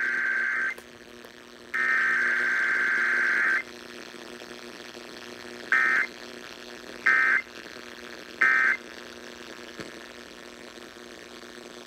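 Emergency Alert System data tones for a Required Weekly Test, heard off a radio broadcast. One header burst ends just after the start, a second header burst of about two seconds follows, and after a pause come three short end-of-message bursts about a second apart. Under them runs a faint steady hum.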